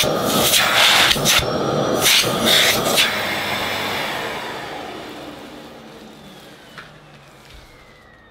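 Hoover Discovery bagless cylinder vacuum cleaner running at maximum power, then switched off about three seconds in; the motor's whine falls in pitch and fades as it spins down.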